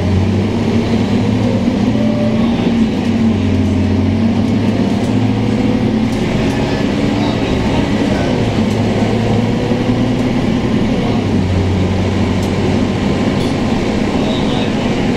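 Scania K230UB bus's DC9 five-cylinder diesel engine running with a steady drone, heard from inside the passenger cabin, its hum shifting slightly in pitch along with road noise.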